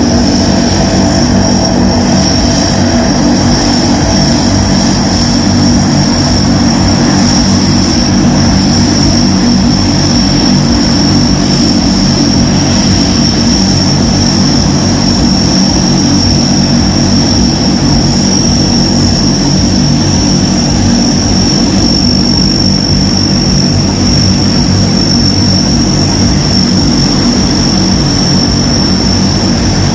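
NASA Super Guppy's four Allison T56 (501-D) turboprop engines running as it taxis close by. The propellers make a loud, steady drone under a constant high-pitched turbine whine.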